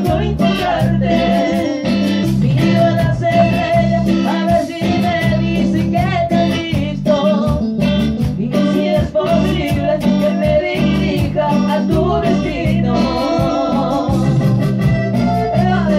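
Latin dance-band music: electric guitar and keyboards over a steady beat, with a voice singing.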